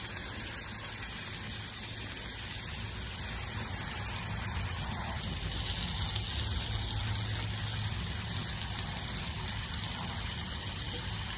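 Steady hiss and sizzle from a four-burner Blackstone propane griddle, its burners lit and fish fillets cooking on the hot plate.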